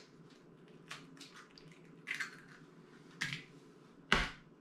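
Eggs being cracked against the rim of a plastic mixing bowl: a few short, sharp taps and shell cracks, with a louder knock about four seconds in.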